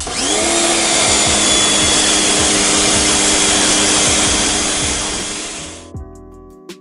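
Sun Joe SPX2598 electric pressure washer starting up as the wand is triggered, its motor pitch rising briefly and then holding a steady whine under the loud hiss of the water jet rinsing soap off a car. The sound fades and cuts off about six seconds in, leaving background music with a beat.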